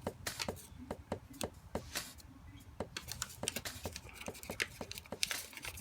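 Sheet of paper crinkling and crackling in the hands as an origami model is folded and a fold is poked out, a run of quick, irregular sharp clicks.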